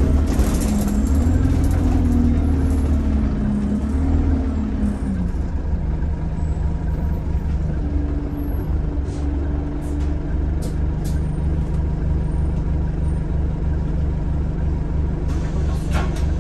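Single-deck bus engine and drivetrain heard from inside the passenger cabin while the bus drives. A brief hiss comes near the start, and a whine wavers and then falls away about five seconds in, leaving a steady low rumble.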